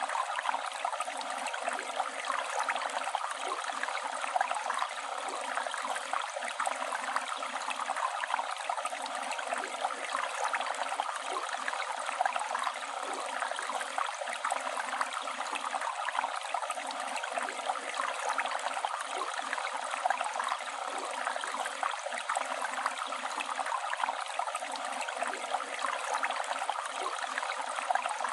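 Flowing river water, a steady rushing and splashing with no change over the stretch.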